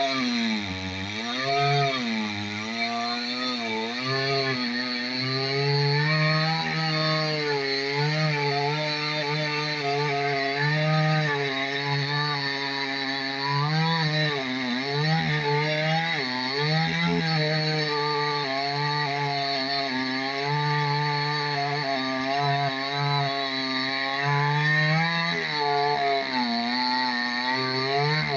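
Two-stroke chainsaw cutting through a large tree trunk under load. The engine's pitch keeps dipping and recovering as the chain bites into the wood.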